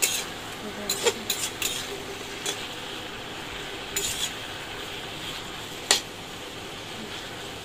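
Metal spatula scraping and clinking against a metal wok as leafy greens are stir-fried, over a steady sizzle. The clinks come irregularly, with one louder clank late on.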